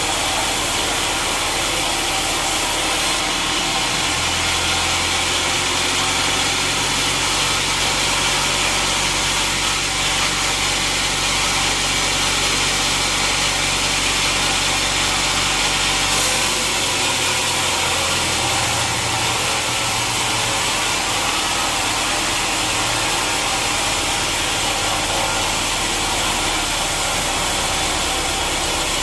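Sawmill machinery running: a steady, loud wash of saw and machine noise over a motor hum whose pitch shifts a few times, about four seconds in and again around the middle.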